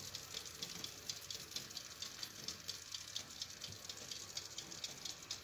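Faint sizzling of freshly baked fish just out of the oven, a steady dense crackle of tiny pops.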